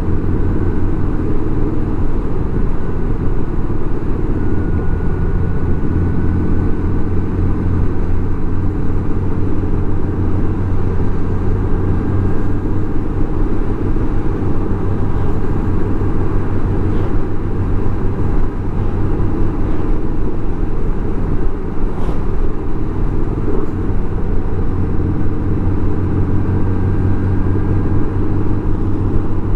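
Touring motorcycle cruising at a steady highway speed: an even, unchanging drone of engine, wind and tyres picked up by the bike's own camera.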